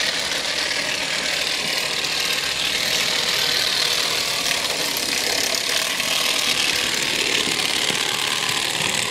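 Lux track-cleaning car for Märklin track running with its built-in vibrator shaking the grinding pad against the rails: a loud, steady rattling buzz.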